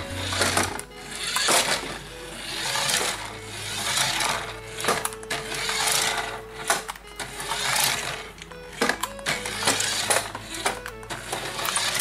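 Small electric motor and gears of a toy remote-control car whirring as it drives, swelling and dropping off every second or two as the sticks are worked, over background music.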